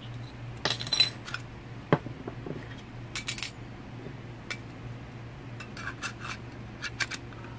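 Hard floor-drain fittings being handled and fitted together: scattered sharp clicks and clinks, the loudest about a second in and another near two seconds, with more around the middle and near the end. A steady low hum runs underneath.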